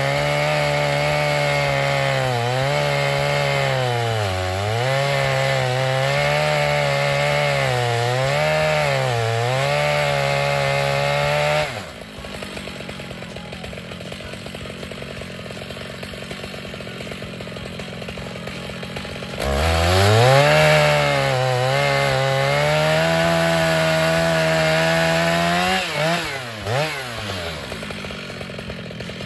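Stihl MS 881 two-stroke chainsaw on a chainsaw mill ripping through white oak at full throttle, its pitch dipping several times as the cut loads the engine. About twelve seconds in it drops to idle, revs back up near twenty seconds and runs hard again, then gives two quick blips and settles back to idle near the end.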